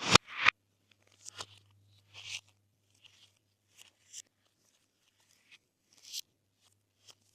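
Glossy slime being pressed and mixed by hand, giving short sticky pops and crackles in irregular bursts, the loudest two right at the start.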